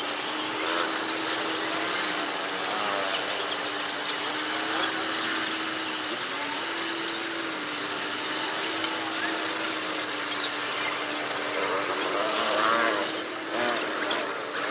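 Roadside traffic ambience: a steady engine hum that steps up in pitch briefly about six seconds in, faint voices, and scattered soft taps of a knife on green papaya.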